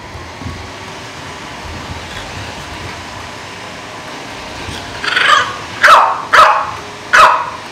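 A dog barking: four short, loud barks in the last three seconds, each dropping in pitch, after several seconds of steady background hiss.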